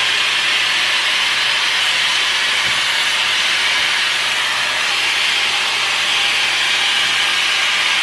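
Shark FlexStyle air styler with its round brush attachment running: a steady rush of blown air over a faint motor hum, as it is drawn through a section of hair.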